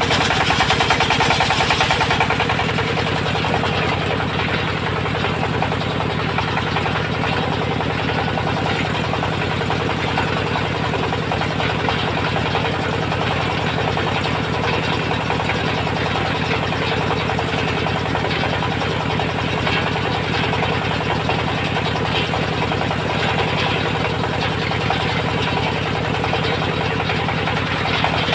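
Engine-driven circular sawmill running steadily. About two seconds in, the higher hiss drops away and the engine runs on evenly.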